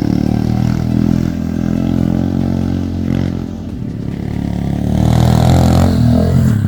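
Honda CRF110 pit bike's small single-cylinder four-stroke engine running under throttle while being ridden, its revs rising and falling and getting louder about five seconds in.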